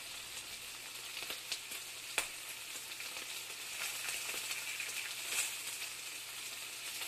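Steady crackling sizzle of food frying, with scattered sharp clicks, the loudest about two seconds in.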